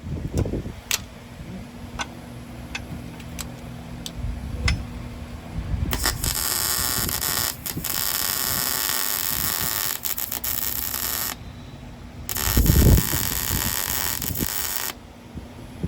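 Electric welder laying a weld onto a broken exhaust bolt in a cylinder head, to get a grip on it for extraction. Two stretches of steady crackling frying, about five seconds and then about three, each starting and stopping abruptly with the trigger, after scattered ticks and a few dull knocks.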